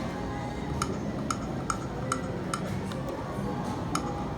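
Video slot machine sounding during a spin: a steady run of light ticks, about two a second, over the machine's music and casino background noise.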